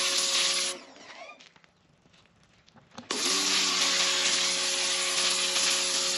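Stanley SXPW22E electric pressure washer spraying a jet of water onto grill grates and concrete: a loud hiss over the steady hum of the pump motor. Less than a second in, motor and spray wind down and stop. About two seconds later they start again abruptly and run on.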